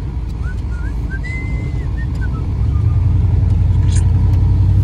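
Chevrolet pickup truck's engine and tyres droning as heard inside the cab while driving, a steady low rumble that grows louder about two and a half seconds in.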